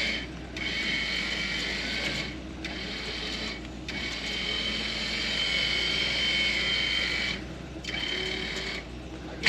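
Super Winch LP8500 electric winch motor and gear train whining under load as it reels in cable on a heavy white oak log that is digging into the ground. The pull cuts out briefly about five times, then starts again.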